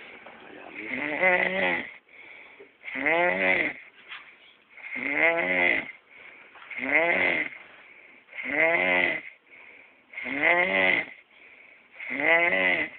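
Snoring from a sleeper: seven pitched snores, each about a second long and wavering in pitch, coming about every two seconds with fainter breathing between them.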